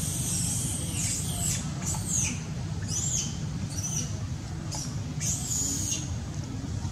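Baby long-tailed macaque giving short, high-pitched squeals, some rising and falling in pitch, about one a second, over a steady low rumble.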